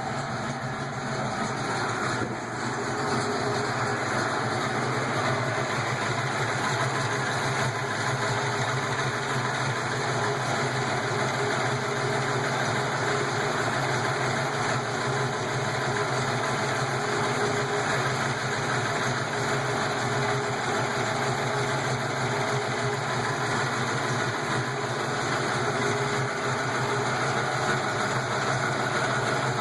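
331 cubic-inch V8 idling steadily while warming up from a cold start, with the valvetrain lifter noise the owner is checking.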